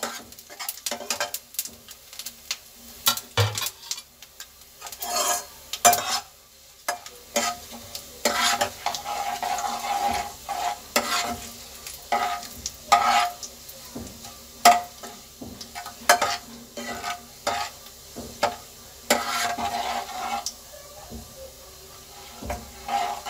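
Steel ladle stirring and scraping around a kadhai in repeated irregular strokes, while whole spices (cumin, carom seeds, nigella and fennel) sizzle in hot oil as they roast.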